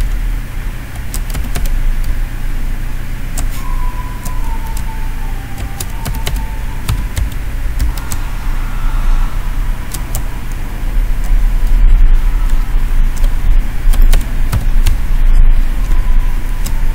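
Computer keyboard keystrokes while a password is typed, heard as scattered sharp clicks over a steady low hum or rumble that is the loudest sound and grows louder about two-thirds of the way through.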